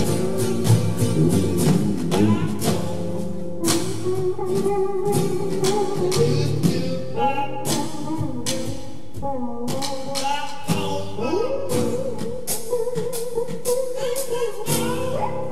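Background music with a singing voice over instruments and a recurring beat.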